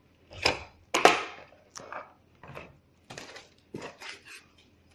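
Irregular clacks and rustles as a CPU tower cooler and its packaging are handled and unpacked from the box, about one or two knocks a second.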